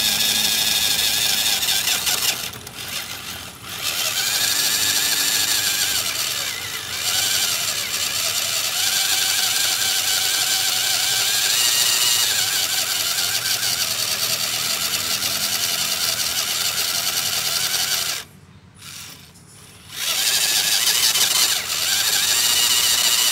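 RC scale crawler's electric motor and geared drivetrain whining as it crawls up a steep slope, the pitch rising and falling with the throttle. The whine stops briefly about two and a half seconds in and again for about two seconds near the end.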